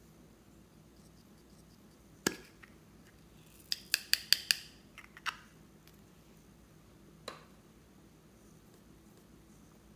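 Small plastic slime containers being handled and opened: a sharp plastic click, then a quick run of five or six clicks, and a couple of single clicks after, over quiet room tone.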